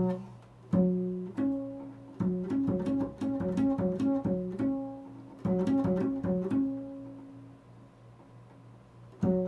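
Double bass played pizzicato: a phrase of plucked notes, each ringing and fading, with a quick run of about four notes a second in the middle. The playing pauses and dies away for about two seconds near the end before a new phrase begins.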